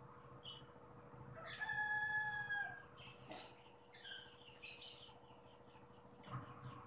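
Mouth sounds of eating noodles: chewing and lip smacks heard as short clicks throughout. About one and a half seconds in, a bird's long held call lasts a little over a second, dipping at the end, and is the loudest sound.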